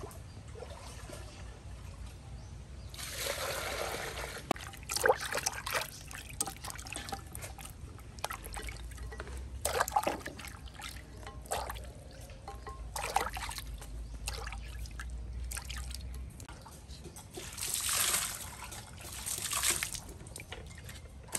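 Water poured and splashing in a glazed basin as hands wash red chilies and limes in it, with two longer pours, one a few seconds in and one near the end, and short splashes and knocks of the produce and basin between.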